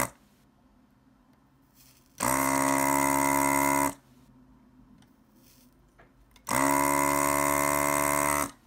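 Electric desoldering gun's built-in vacuum pump running in two bursts of about two seconds each, sucking molten solder off circuit-board pins. Each burst starts with a short rise in pitch, then holds a steady hum before cutting off.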